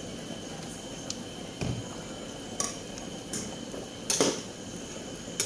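A few separate clinks and knocks of a cooking utensil against a pot, the loudest about four seconds in.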